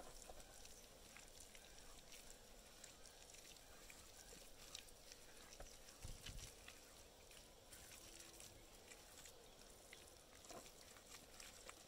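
Faint wet squelching and rubbing of bare hands pressing and smoothing a soft cow-dung and soil mix onto a floor, with a soft thud about six seconds in.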